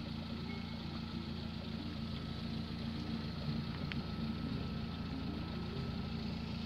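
Steady low engine hum of an idling vehicle.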